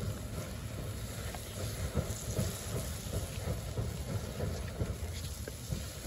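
Ground-meat kebabs sizzling on flat skewers over a charcoal grill, with many small crackles from fat dripping onto the coals. Wind rumbles on the microphone underneath.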